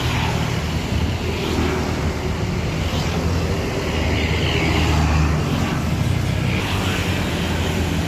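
Diesel engine of a large intercity coach bus running as it pulls out past, a steady low rumble that swells a little about halfway through.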